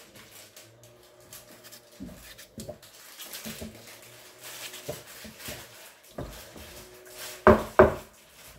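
A knife cutting a raw potato held over a stainless steel pot, making small scattered clicks and scrapes as pieces are cut off. Near the end come two loud knocks on the metal pot, about a third of a second apart.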